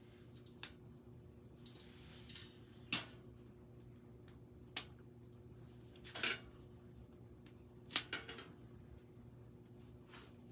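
Scattered light clicks and knocks of a steel mesh desk organizer frame and its small parts being handled, about half a dozen in all, the loudest about three seconds in. A faint steady hum lies underneath.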